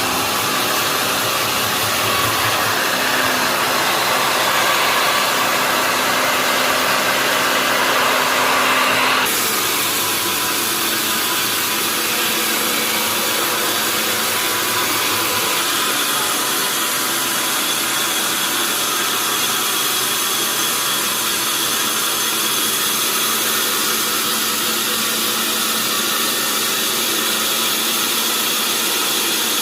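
Sawmill machinery running steadily, a continuous loud mechanical noise with a faint hum, whose character changes abruptly about nine seconds in.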